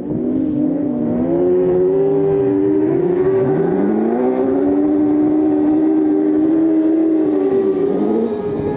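Several autograss race cars racing on a dirt oval, their engines revving and rising and falling in pitch as they pass; several engines overlap at once.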